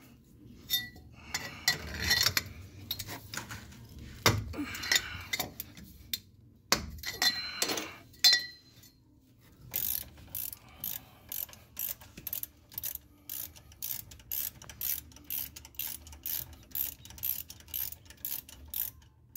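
Socket ratchet wrench working a brake caliper bolt: scattered metal clinks and knocks at first, then from about halfway on a steady run of ratchet clicks, roughly three a second, as the bolt is backed out.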